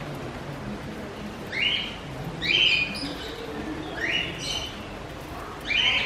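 Small cage birds giving short, harsh chirping calls, four of them about one to two seconds apart, each with a quick upward slide at its start.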